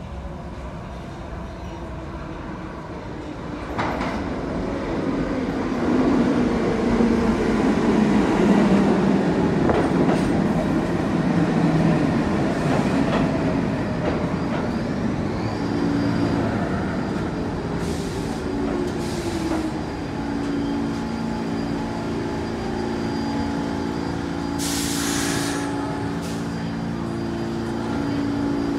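An R46 subway train pulls into the station: a rising rumble of wheels on rail with a whine that falls in pitch as it brakes. It then stands humming with steady tones, with short bursts of air hiss, the longest near the end.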